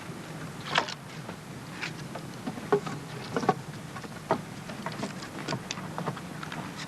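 Small split pieces of lapwood knock and clatter irregularly as they are set onto a charcoal pile, about a dozen sharp knocks of different loudness. A steady low buzz runs underneath.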